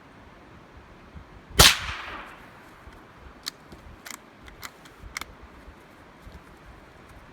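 A single gunshot about one and a half seconds in, its echo fading over about half a second, followed by several light, sharp clicks.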